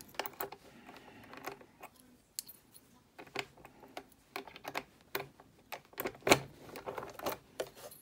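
Small metallic clicks and taps from a SentrySafe fire chest's key lock and latch being worked by hand, irregular throughout, with one louder click about six seconds in.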